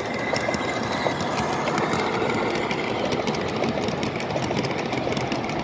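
Large-scale Amtrak model train running on its track: a steady rolling rumble of wheels and motor, with fast fine clicking that thickens about halfway through.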